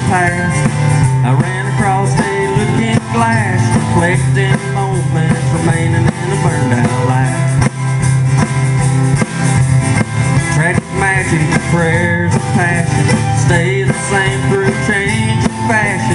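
Live country-bluegrass band playing an instrumental break between verses: acoustic guitars, banjo, upright bass and drum kit.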